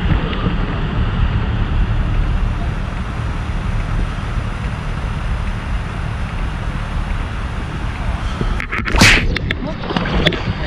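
Wind buffeting the microphone as a steady low rumble. About nine seconds in, one sudden loud, sharp burst of noise cuts through it.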